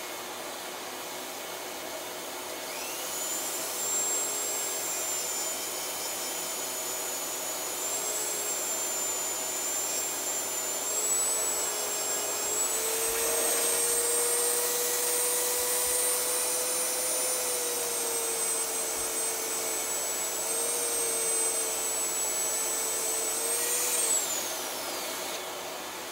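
Handheld rotary tool spinning up with a high whine about three seconds in, its pitch wavering slightly as it sands felt off the shoulders of a piano hammerhead to take off weight, then spinning down with a falling whine near the end. A steady rushing noise runs underneath throughout.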